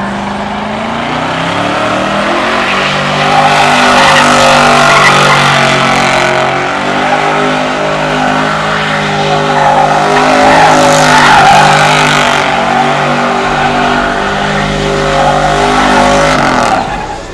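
A car spinning its tires at high revs: the engine note rises and falls in steps over a continuous tire screech, cutting back just before the end.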